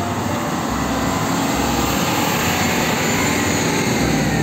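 Heavy diesel fuel tanker trucks driving past, a steady engine rumble mixed with road noise.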